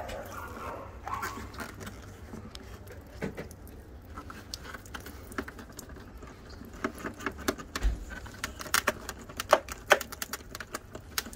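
Light clicks, taps and rattles as a removed plastic tail light housing is handled and turned over. A tool dangling on a strap jangles against it. The knocks come thicker in the second half.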